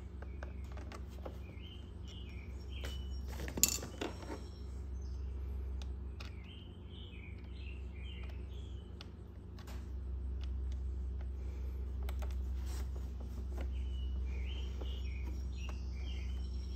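A small bird chirping in short phrases, three times, over a steady low hum, with scattered small clicks of needle-nose pliers and fingers working on the plastic battery compartment and its wiring; one sharp metallic click about three and a half seconds in is the loudest sound.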